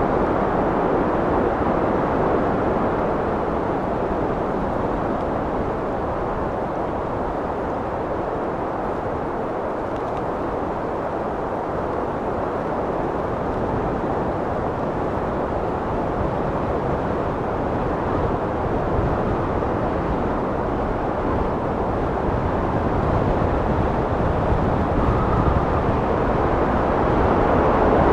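Wind blowing steadily as a deep, even rush, easing a little midway and gusting stronger near the end.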